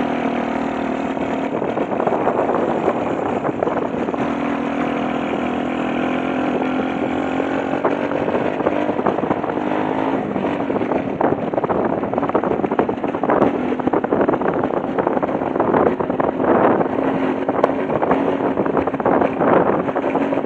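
Trucks on the road: steady engine drone with road noise and a low hum. The sound becomes rougher and more uneven from about halfway on.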